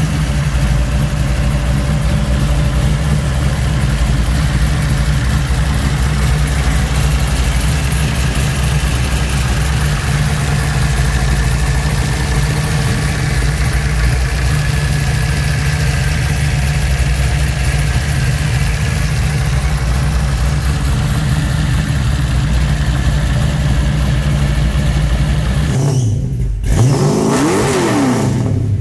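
A 400 cubic-inch small-block Chevy V8, fed by twin Edelbrock 600 CFM carburetors and exhausting through long-tube headers into a straight exhaust, idling steadily. Near the end it gives one quick rev up and back down.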